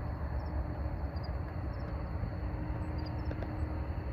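Outdoor ambience: a steady low rumble of wind on the microphone, with faint short high chirps scattered through it.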